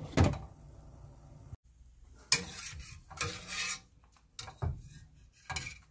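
A glass pot lid clinks twice against a stainless steel pot at the start. Then a metal ladle scrapes and knocks in the pot in several short bouts, fishing out boiled cinnamon sticks and ginger slices.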